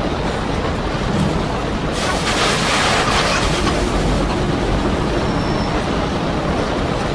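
Storm wind buffeting the microphone over the rumble and rush of heavy seas breaking around a ship. A louder hissing surge of spray comes about two seconds in and fades after a couple of seconds.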